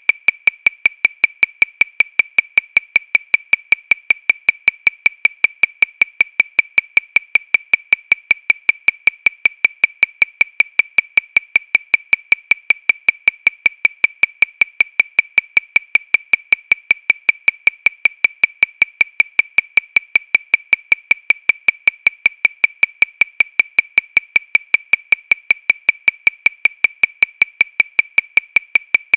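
Metronome ticking steadily at 314 beats per minute, about five short high-pitched clicks a second, every click alike with no accented beat.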